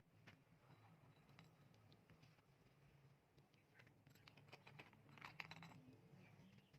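Near silence: a faint steady low hum with scattered faint clicks, a small cluster of them about five seconds in.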